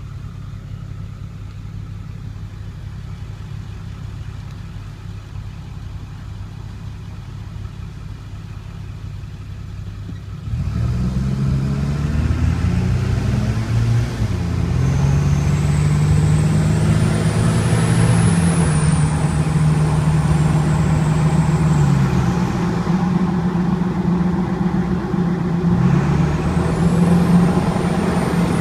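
2002 Ford 7.3 Power Stroke V8 turbodiesel running steadily, then about ten seconds in growing louder and rising in revs, with the pitch climbing, holding and dropping several times. A thin, very high squeal comes in over the engine for a few seconds in the middle and again briefly near the end.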